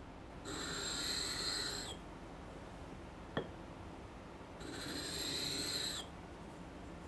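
Japanese plane blade being sharpened on a wet waterstone: two long strokes of steel across the stone, each about a second and a half, with a scrape and a high whistling tone that dips as each stroke ends. A single sharp click falls between the strokes.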